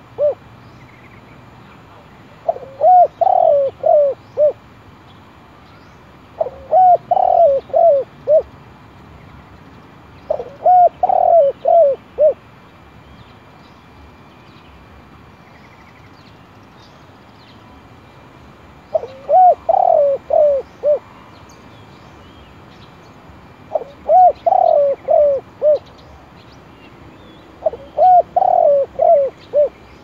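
Spotted dove cooing: six phrases of four or five quick coos each, repeated every few seconds, with a longer pause midway. It is the calling of a tethered decoy dove, used to lure wild spotted doves to a trap.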